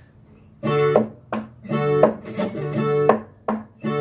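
A viola caipira being fingerpicked: a melody of plucked notes over a recurring low bass note, starting about half a second in.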